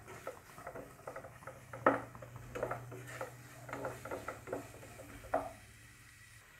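Wooden spatula stirring and scraping chopped vegetables frying in a nonstick kadai, with irregular taps and scrapes against the pan. The stirring stops a little after five seconds in, with a last knock, and only a faint low hum remains.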